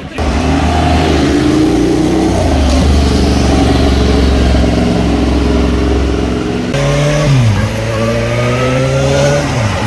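Vehicle engine accelerating, its pitch climbing; about seven seconds in it switches abruptly to a second run that drops in pitch twice at gear changes and climbs again.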